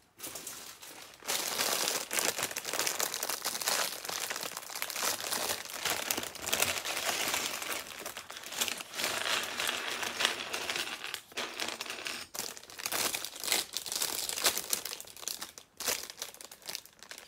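Thin plastic Lego parts bag crinkling as it is opened and emptied of its pieces, starting about a second in, with a few brief pauses in the handling.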